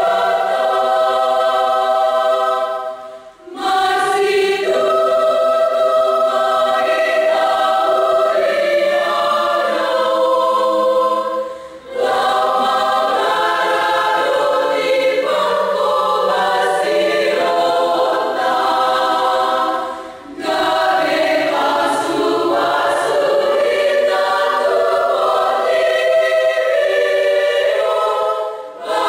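A women's choir singing together in long sustained phrases, with brief pauses between phrases about every eight seconds.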